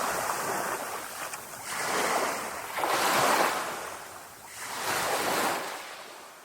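Sea waves washing in, rising and falling in several surges a second or two apart, fading away near the end.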